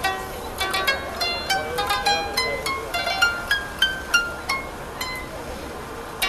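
A koto being plucked: a melody of single ringing notes that decay quickly, several a second, with a few quick runs.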